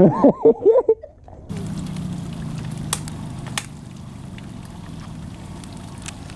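Outboard motor on a small aluminum jon boat running steadily, a low hum over water wash, easing down a little about halfway through.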